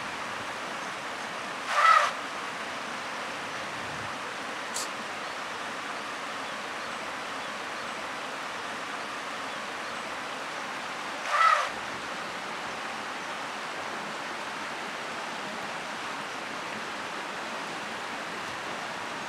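Steady rushing of a shallow river flowing. Two short, loud sharp sounds stand out over it, about two seconds in and again about ten seconds later.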